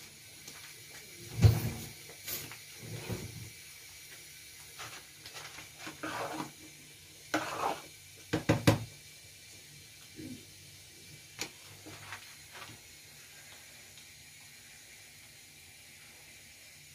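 A metal spoon stirring a thick mung bean and squash stew in a pan, scraping and knocking against the pan now and then. The loudest knocks come about a second and a half in and just past the middle.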